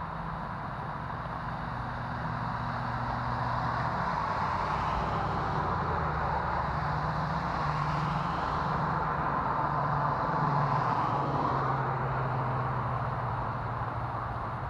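Vehicle traffic on a rain-soaked highway: tyres hissing on wet pavement over a low engine hum. It swells through the middle as vehicles go by and eases off near the end.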